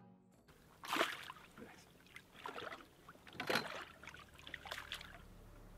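Water splashing in several short bursts, the loudest about a second in and again about halfway through, as a lively pike shifts in the landing net at the boat's side.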